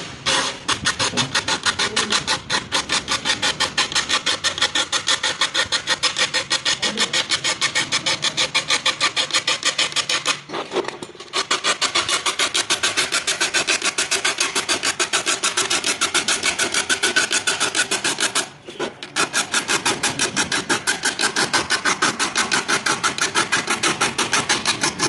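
Saw file rasping across the teeth of a hand saw clamped in a vise, sharpening it: quick, even strokes at about four or five a second, two strokes to each tooth, with two short pauses.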